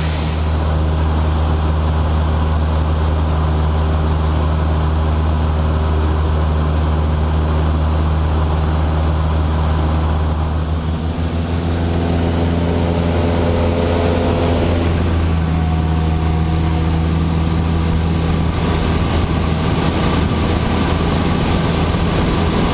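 Cessna Aerobat's four-cylinder piston engine and propeller droning steadily in flight, heard inside the cabin, with the engine note shifting about halfway through.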